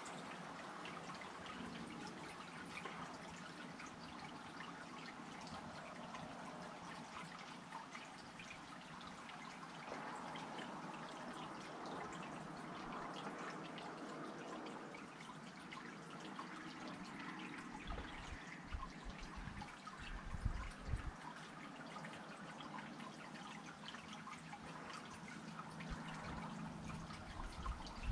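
Water dripping and trickling steadily, dotted with many small drop ticks. A few low rumbles come through about two-thirds of the way in.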